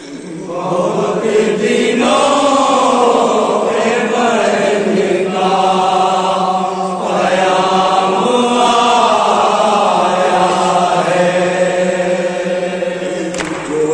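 A group of men chanting a noha, a Shia lament for Ali Asghar, in unison with no instruments. The chant starts about half a second in and then carries on at an even, loud level.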